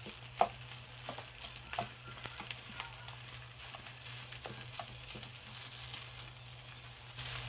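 Fried rice with salmon and green peas sizzling faintly in a black frying pan while a slotted spatula stirs and turns it. Scattered taps and scrapes of the spatula against the pan come through, the sharpest about half a second in.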